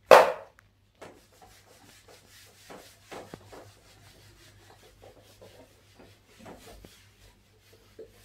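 Board eraser rubbing across a whiteboard in repeated, irregular strokes, wiping off marker writing. A short, loud knock comes right at the start, louder than the rubbing.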